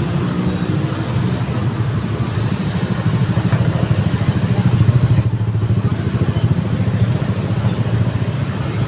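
Diesel bus engine running close by: a steady low rumble with a rapid firing pulse, swelling a little around the middle. No telolet horn sounds.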